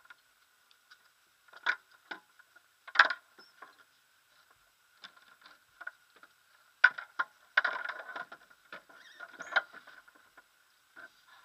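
Irregular faint clicks, taps and small knocks, picked up by a camera mounted on a parked glider's fuselage. They come singly at first, then bunch into a busier cluster of rustling knocks a little past halfway.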